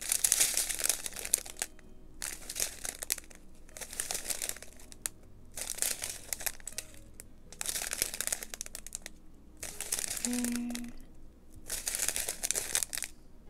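Clear plastic packets of square resin diamond-painting drills crinkling as they are handled and turned over, in about seven bursts of a second or so each with short pauses between.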